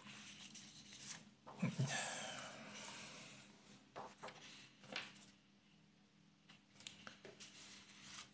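Sheets of paper being moved and slid across a desk: a soft thud about two seconds in, then a rustle lasting a couple of seconds, followed by a few lighter paper rustles and ticks.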